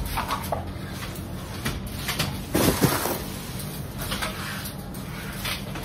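The metal frame and springs of a round mini trampoline knocking and rattling as it is handled, with one louder scraping rattle about two and a half seconds in.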